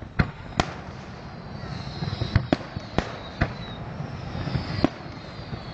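Fireworks going off: a string of about seven sharp bangs, some in quick pairs, with faint falling whistles between them.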